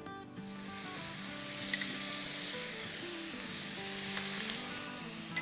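Water spooned onto vermicelli roasted in oil in a hot pan, sizzling steadily from about half a second in.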